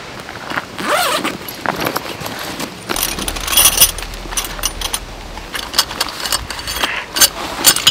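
Gloved hands rummaging through a fabric camping-gear bag: rustling with many sharp clicks and clinks of the gear inside, busiest in the second half.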